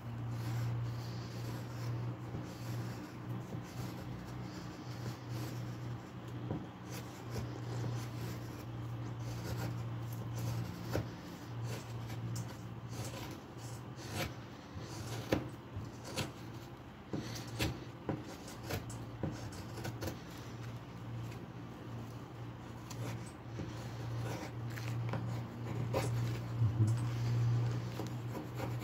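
A knife blade shaving curls off a wooden stick by hand, irregular short scraping strokes, over a steady low hum. Near the end it turns to quicker strokes of a rasp filing the wood.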